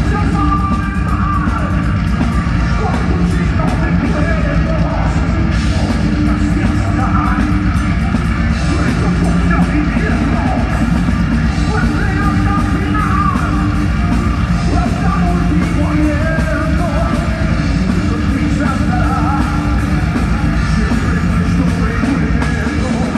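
Live heavy metal band playing: distorted electric guitars and drums, with a singer's vocals over them, loud and continuous.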